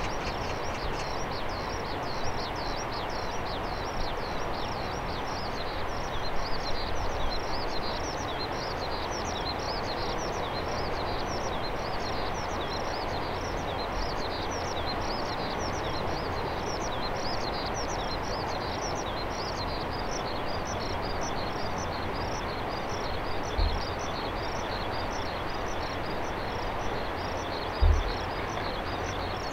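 Steady, even hum of an Airbus A320's jet engines at taxi power across the airfield, with rapid high chirps repeating throughout. Two short low thumps near the end.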